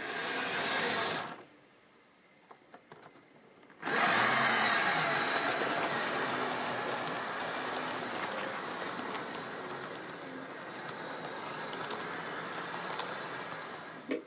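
Tri-ang model train running on its track: the locomotive's electric motor whirs and the wheels rattle over the rails. A short run of about a second, a pause, then a louder run from about four seconds in that slowly fades as the train moves away and cuts off sharply at the end.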